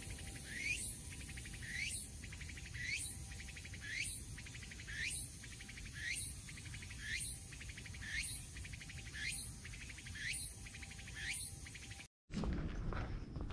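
Insects calling: a steady high buzz with a rising chirp repeating about once a second, which cuts off sharply about twelve seconds in.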